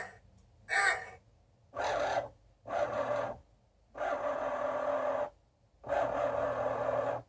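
Excalibur Phantom Force chess computer's motorised magnet carriage under the board whirring in a series of short runs, stopping and starting about five times. It is dragging a captured rook off the board.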